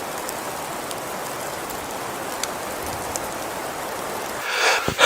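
Steady, even hiss like falling rain. Near the end, rhythmic scraping strokes begin, a few per second.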